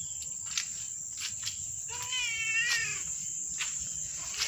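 A cat meowing: one drawn-out meow, rising then falling in pitch, about two seconds in, and another starting right at the end.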